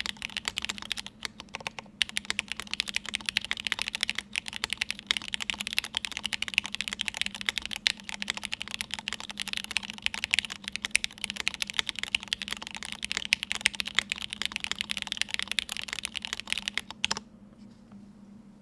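Fast, continuous typing on a Cake60 mechanical keyboard with lubed Gateron X r1 linear switches, a half FR4 plate and GMK keycaps: a dense run of key clacks that stops abruptly near the end, leaving a faint steady hum.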